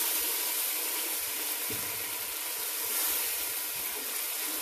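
Curry masala of onion and tomato sizzling steadily in a pan on medium heat, just after a splash of boiled water went in, with a steady hiss. A wooden spoon stirring through it makes a few soft knocks.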